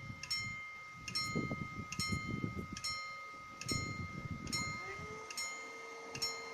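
Railway level-crossing bell ringing in a steady, even rhythm, about one strike a little faster than every second, each strike ringing on, signalling that the barriers are down for an approaching train. Low wind rumble on the microphone underneath, and a steady hum comes in about five seconds in.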